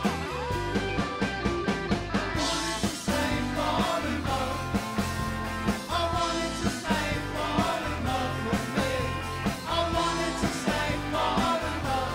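Background rock song with a steady drum beat and a singing voice.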